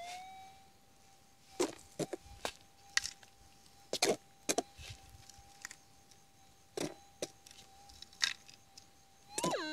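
Minelab GPZ gold detector holding a steady threshold hum, with a string of sharp knocks and scrapes from rocks and soil being handled. Near the end the detector breaks into a wavering target signal, its pitch dipping and rising, as the piece holding the gold passes over the coil.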